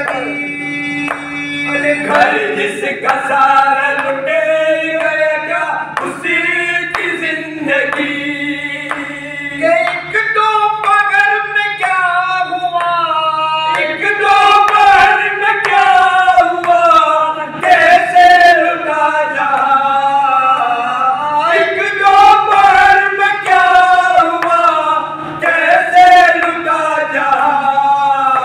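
A group of men singing a matami noha, an Urdu lament for Imam Husain, in unison without instruments, with long held and bending sung notes. A steady low hum runs underneath.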